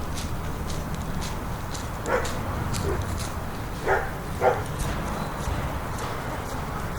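A dog barking a few short times, about two seconds in and twice near the middle, over a steady low hum of suburban background noise with short high chirps throughout.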